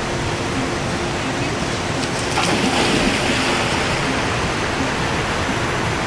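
Creek water rushing steadily over rocks, a little louder and brighter from about two seconds in.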